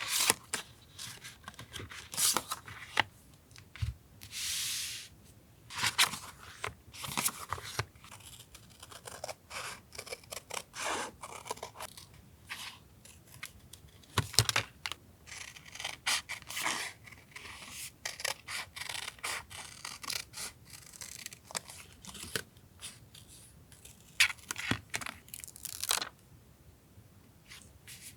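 Close-up paper crafting sounds of journal collaging: paper and stickers being handled, torn and rustled, with frequent short clicks and taps. One longer tearing sound comes about four to five seconds in.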